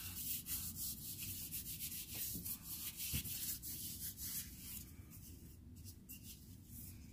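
Gloved hands rubbing boiled linseed oil into a solid mulberry wood mallet: an irregular scratchy rubbing of glove on wood, busier for about five seconds then lighter, with one light knock about three seconds in.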